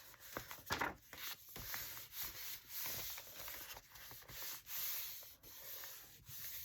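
Hands rubbing and smoothing cardstock down onto a journal page, a series of soft scraping strokes of paper against paper.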